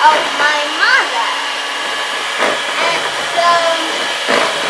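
Electric hand mixer running steadily, its beaters whipping heavy cream with sweetened condensed milk in a plastic bowl. A girl's voice comes over it briefly near the start and again now and then.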